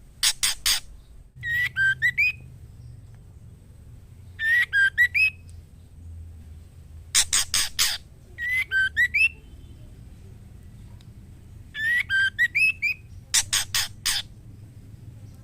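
Female white-rumped shama calling to males: short whistled phrases of a few rising and falling notes, alternating with bursts of three or four harsh, rasping notes, the pattern repeating every few seconds.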